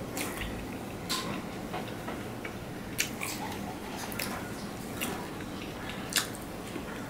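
Fingers mixing rice and curry on a stainless steel plate: soft wet squishing broken by irregular sharp clicks of fingertips against the steel, the loudest about three seconds in and again near the end.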